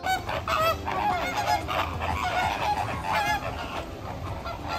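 A flock of flamingos honking: many short, goose-like calls overlapping in a constant chatter.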